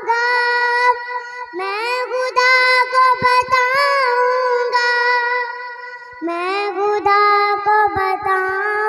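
A high voice singing an Urdu naat, holding long wavering notes with slides in pitch and no clear words.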